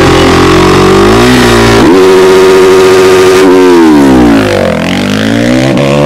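Honda 450 single-cylinder racing motorcycle engine revving hard. Its pitch climbs, dips briefly about a second and a half in, climbs again, falls smoothly for about a second past the middle, and rises once more near the end.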